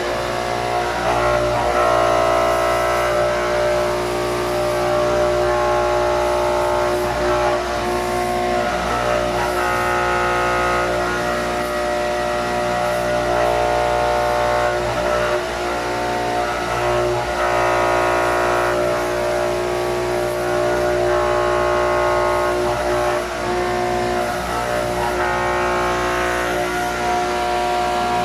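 CNC vertical machining centre milling a part: a steady machine whine of several tones from the spindle and drives, with the cutting noise rising and falling slightly over it.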